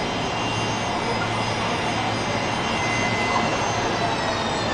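Jet airliner's engines: a steady roar with high whining tones that sink slowly in pitch.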